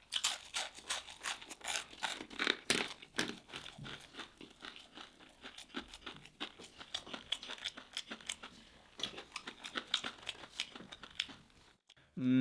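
Close-miked crunching and chewing of crispy fried seafood, a dense run of crackly crunches that stops shortly before the end.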